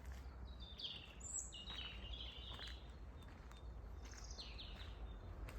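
Several small birds chirping and twittering in a woodland, with short high calls and trills scattered through, over a low rumble of wind on the microphone.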